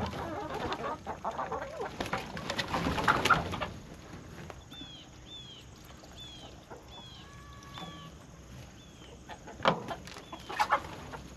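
Chickens clucking, busiest in the first few seconds, with a few loud calls near the end. In between, a small bird gives short high falling chirps over and over.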